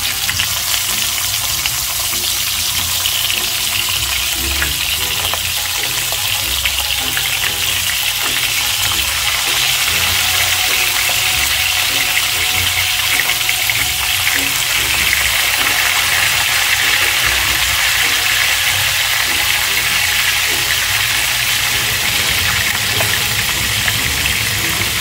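Raw chicken thighs sizzling as they sear in hot olive oil in an enamelled cast-iron Dutch oven. It is a steady loud hiss that starts as the first thigh goes in, and it grows a little fuller as more thighs are added.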